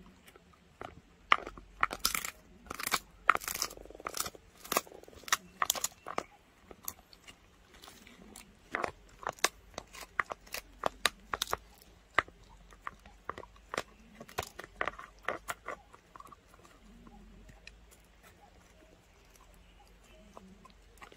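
A dog crunching and gnawing on a dried pig ear, sharp cracking crunches coming in quick clusters, which die away about three quarters of the way through.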